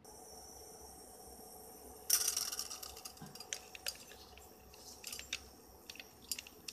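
Popcorn kernels and oil tipped into a hot steel pan: a sudden burst of sizzling about two seconds in that dies away, followed by scattered sharp crackles and clicks.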